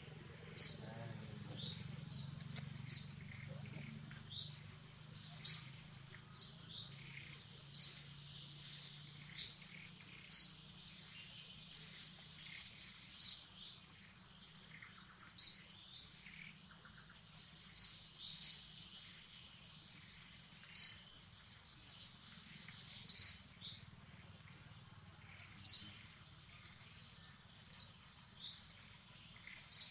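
A bird's short, high chirps, repeated every one to two seconds at an uneven pace, over a steady high-pitched insect drone.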